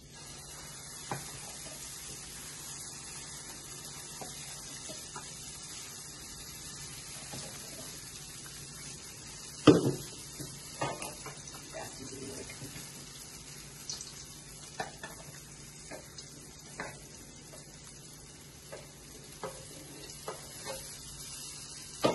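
Steel ladle knocking and clinking against a steel vessel and pan as thick utthapam batter is scooped and poured, over a steady low hiss; the loudest knock comes about ten seconds in.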